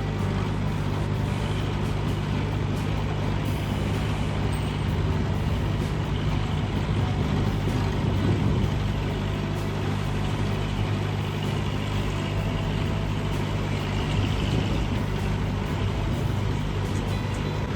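Heavy forestry machine's engine running steadily under load, a low drone that holds even throughout.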